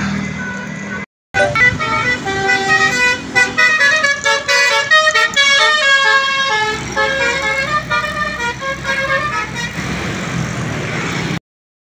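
Bus telolet horn, a musical multi-tone horn, playing a quick tune of short notes that jump between pitches, over a running bus engine and traffic. The tune stops about three-quarters of the way through, leaving the engine and road noise, and the sound cuts out briefly about a second in and again just before the end.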